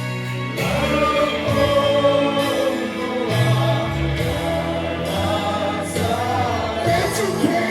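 Music with a group of voices singing over held bass notes that change every second or so.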